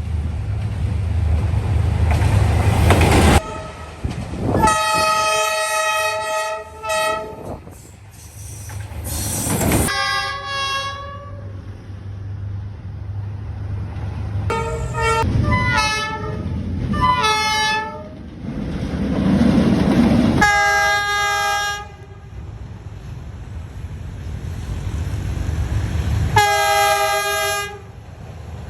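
D19E diesel locomotive air horn sounding a series of chord blasts: several long blasts and a run of three short toots about halfway through. Between them, a train's heavy rumble is loudest at the start and cuts off abruptly a few seconds in.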